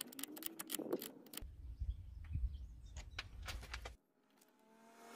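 Light metallic clicks and clinks of a spanner tightening the clamp bolt on a brass battery-terminal isolator switch, over a low rumble. The sound cuts out about four seconds in.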